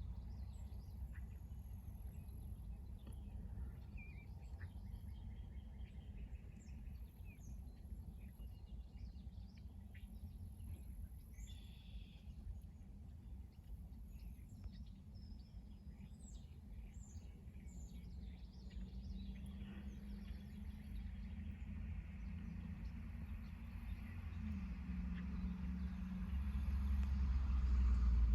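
Small birds chirping over a steady low rumble. In the last third a broader noise swells with a low hum, growing louder toward the end.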